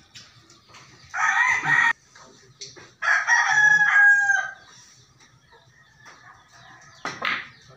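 A rooster crowing twice: a short crow about a second in, then a longer crow about three seconds in.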